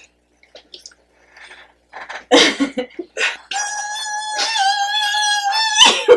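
A person making a vocal sound effect: a few short noises, then one long high-pitched held tone of about two and a half seconds with a slight wobble, meant as a buzz.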